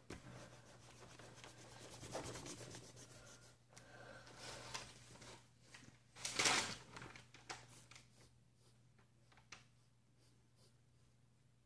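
Pencil sketching on paper: light scratching and rubbing strokes, with a louder burst of rubbing about six and a half seconds in, then fainter strokes. A faint steady low hum lies underneath.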